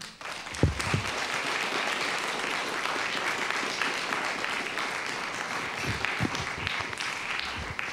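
An audience applauding: dense, steady clapping that eases slightly near the end.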